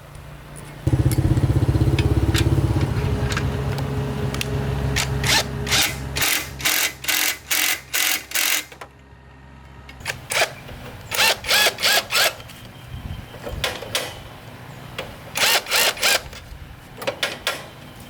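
A small motorbike engine starts about a second in and runs steadily, fading out around ten seconds. Through the second half it is joined, then followed, by runs of short, sharp bursts.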